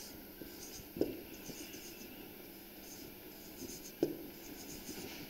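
Marker pen scratching faintly on a whiteboard as letters are written, with two brief louder sounds about one and four seconds in.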